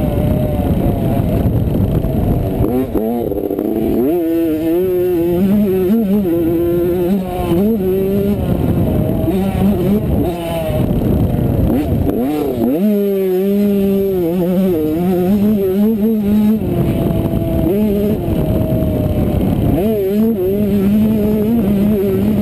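85cc two-stroke motocross bike engine at race pace, revving up and down through the gears. Several times it drops off briefly and then climbs sharply in pitch as the throttle opens again. Heard from the rider's helmet camera.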